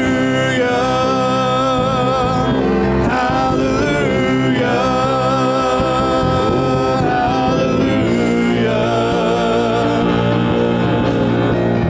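Live gospel worship band playing a song, with singers holding long notes with vibrato over the band.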